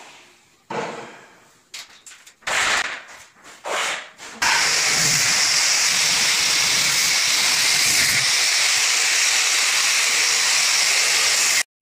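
A steady, loud hiss that starts abruptly about four seconds in and cuts off sharply near the end. Before it come a few short bursts of sound.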